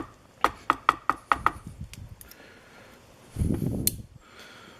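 Euro-profile lock cylinder being shaken and tapped to free a driver pin stack: a quick run of about six sharp metallic clicks with a slight ring, roughly five a second, then a duller knock about three and a half seconds in.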